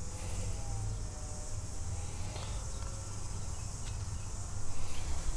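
A steady, high-pitched chorus of insects chirring in the garden, over a low rumble on the microphone.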